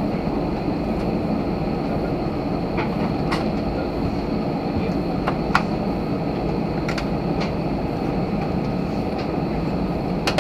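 Cabin noise inside an Airbus A320 on the ground: the jet engines' steady rumble with a faint high whine, and a few scattered clicks and knocks from the cabin or the wheels rolling.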